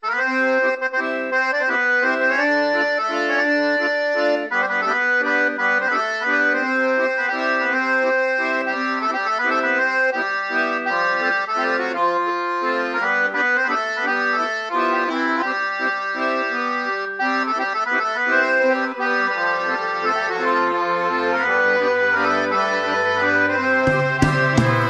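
Accordion playing a slow melody with chords as a song introduction, with low bass notes coming in near the end.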